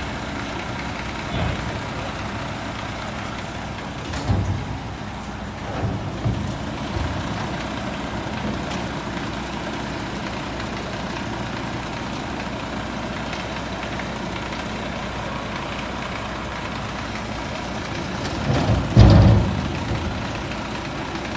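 Front-loader garbage truck's diesel engine idling steadily, with heavy clunks and bangs as junk is thrown by hand into the metal container on its forks; the loudest bangs come near the end.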